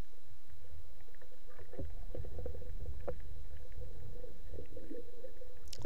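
Muffled underwater rush and rumble of water against a speargun-mounted camera as a spearfisherman dives, with a few faint clicks. The low rumble grows stronger about two seconds in.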